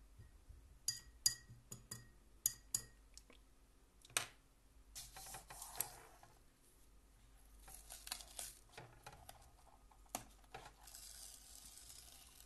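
A few light clinks with a short ring in the first seconds, then several rasping pulls of masking tape being peeled off the watercolour paper.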